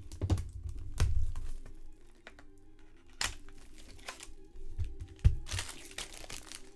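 A trading-card box being handled and opened: several sharp knocks and handling clicks, then the foil pack wrapper crinkling and tearing near the end.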